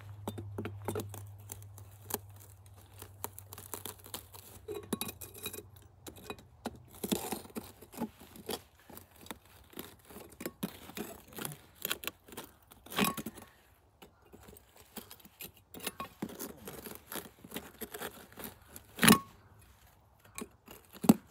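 Metal pieces being handled: scattered light clinks, taps and scrapes, with two louder knocks, one about halfway through and one near the end. A low hum runs under the first third and then stops.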